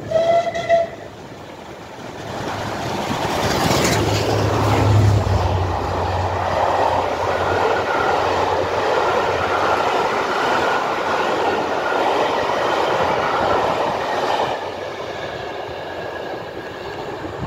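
A short whistle blast right at the start. Then Southern Railway Merchant Navy class steam locomotive 35028 Clan Line passes close by at speed, loudest about four to six seconds in. Its train of Pullman coaches follows, wheels running steadily on the rails, and the sound drops back about fourteen seconds in as the train moves away.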